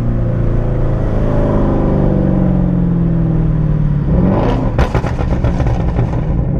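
Straight-piped Jaguar XF exhaust (cats-back delete): the engine note falls steadily for about four seconds as the revs drop, then rises sharply with a quick run of popping crackles as the car accelerates again.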